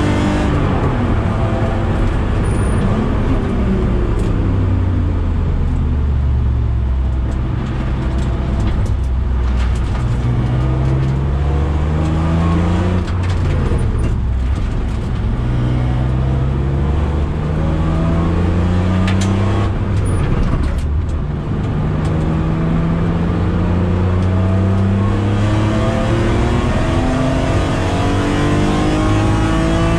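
BMW E46 M3's straight-six engine heard from inside the cabin, repeatedly climbing in pitch under acceleration and dropping back between pulls, as at gear changes and corners on a lap.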